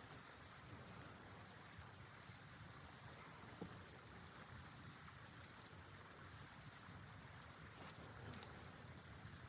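Near silence: a faint steady hiss with a couple of soft clicks.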